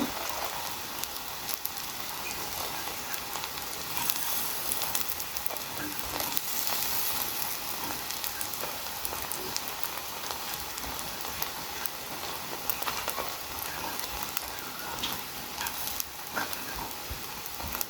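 Pancake batter sizzling as it fries in an oiled pan, a steady hiss with scattered small crackles.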